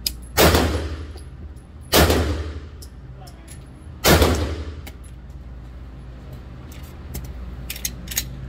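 Three shots from a 9mm Glock pistol, about a second and a half to two seconds apart, each followed by an echoing tail off the walls of an indoor range. Near the end come a few light clicks as the pistol is handled.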